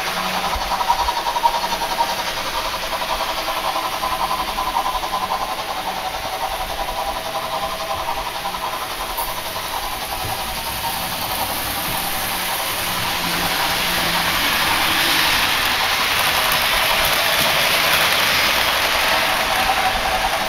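Märklin model trains running on the layout: a steady whine from the locomotive motors, with wheels rattling over the track. The rattle grows louder through the second half.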